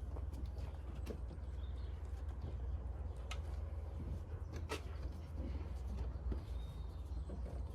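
Light scattered knocks and clicks as a lubricated rubber vent-window seal is pushed and tapped into its frame, over a steady low hum.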